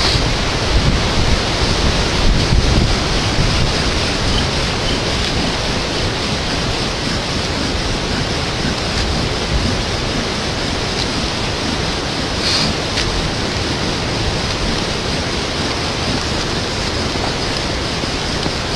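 Hurricane wind and rain: a loud, steady rushing, with gusts buffeting the microphone, heaviest in the first few seconds. A single brief click about twelve seconds in.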